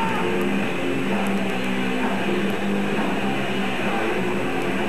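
Extreme metal band playing live: distorted electric guitars riffing over drums in a dense, continuous wall of sound, recorded from the crowd on an old VHS camcorder.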